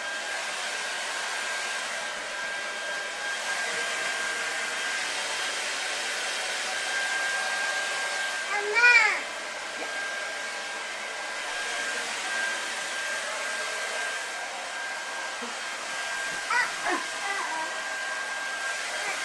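A steady whooshing hum from a running appliance, with one tone held throughout. About nine seconds in, a young child gives a short, loud, high squeal that rises and falls, and a few brief cries follow near the end.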